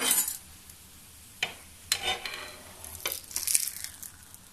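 Flat metal spatula tapping and scraping on a nonstick tawa as it slides under a garlic paratha to lift it, with two sharp clicks about a second and a half and two seconds in, over a light frying sizzle.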